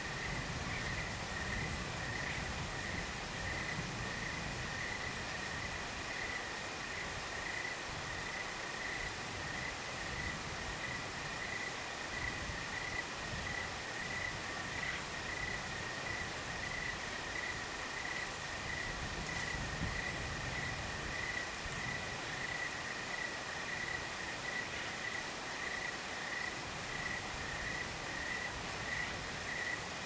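Crickets chirping in a steady, evenly pulsed rhythm, with a soft breeze rumbling on the microphone now and then.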